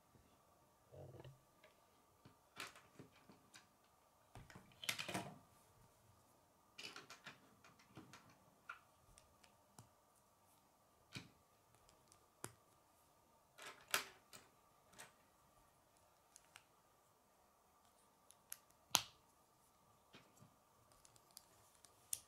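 Plastic K'nex connectors and rods being handled and snapped together: scattered sharp clicks and snaps, a few of them louder, over a faint steady hum.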